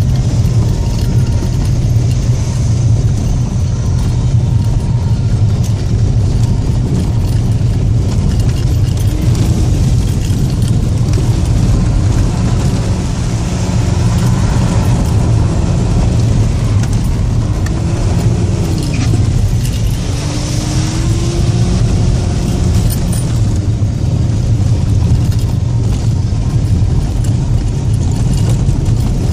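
Audi A6 2.5 TDI quattro's turbocharged V6 diesel running while driving, a loud, steady low rumble. Several times in the middle of the stretch the revs rise and fall.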